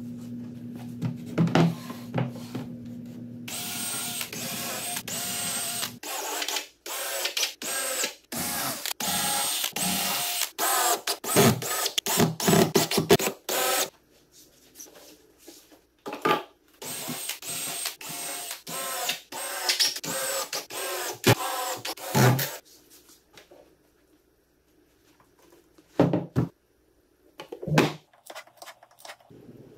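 A small power tool's motor whirring in many short spurts, chopped off abruptly again and again. Near the end come two sharp knocks.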